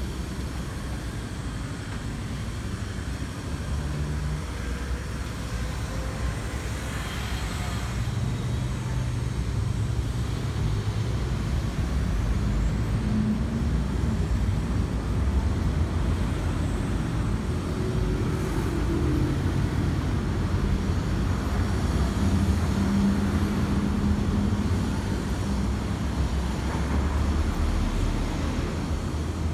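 City road traffic: engines and tyres of passing cars and buses, a steady low rumble that grows somewhat louder after the first several seconds.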